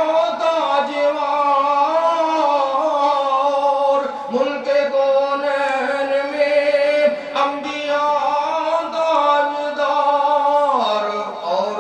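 A man singing a naat, devotional praise of the Prophet, into a microphone, drawing out long held notes that bend slowly; about eleven seconds in the melody drops to a lower note.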